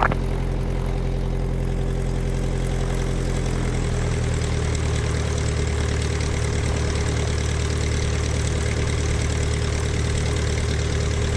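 Cessna 177RG Cardinal's Lycoming IO-360 four-cylinder engine and propeller running steadily at low taxi power. The engine's tone shifts about four seconds in.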